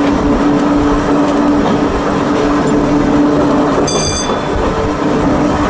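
Volk's Electric Railway electric car running along the track, with a steady hum and wheel-on-rail rumble. A brief high-pitched wheel squeal comes about four seconds in as the car runs towards a curve, and the hum drops out briefly with it.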